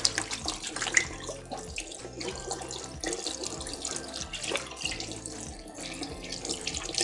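Kitchen tap running into a sink while hands are washed under the stream: a steady rush of water with irregular splashes.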